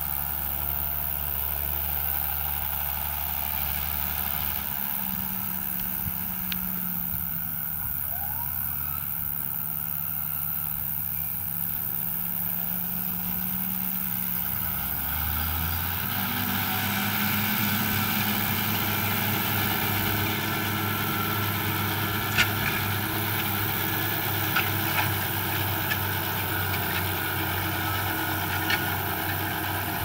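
John Deere 6210R tractor's six-cylinder diesel running steadily while pulling a Pöttinger Terradisc 4000 disc harrow through the field. The engine note shifts about five and fifteen seconds in, and a few sharp knocks come in the last third.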